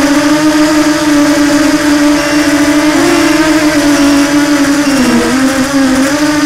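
Electric motor whine of a radio-controlled FPV aircraft in flight: a steady hum that wavers in pitch, dipping briefly about five seconds in and coming back up as the motor speed changes.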